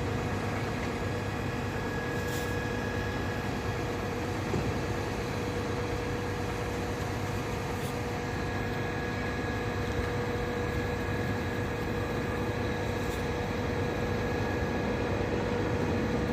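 Diesel engine of a truck-mounted mobile concrete pump running steadily, with a steady whine over the engine noise.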